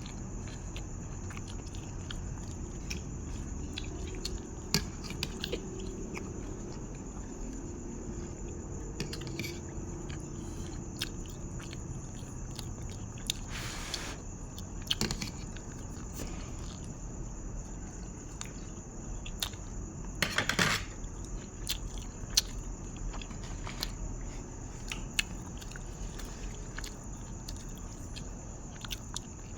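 A person chewing and biting mouthfuls of grilled pork salad (nam tok moo) and sticky rice, with many small wet clicks and smacks. Two longer, louder noises come about 14 and 21 seconds in.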